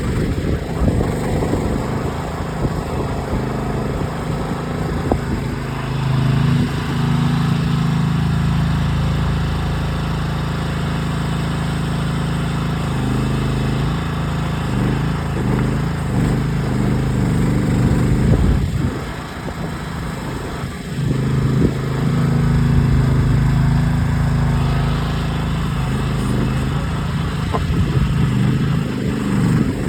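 Gas engine of a Groundhog ZH12G mini excavator running under load while it digs in rocky soil, its note shifting as the hydraulics work, with a brief drop in level about two-thirds of the way through.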